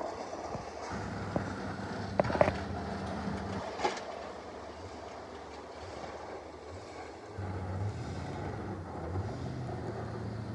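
Steady low rumble of road traffic and truck engines from a highway, with a few light knocks around two and four seconds in.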